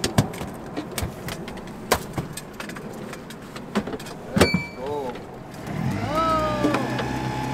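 Sharp knocks and clatter of gear on a fishing boat's deck. About six seconds in, a steady droning hum starts.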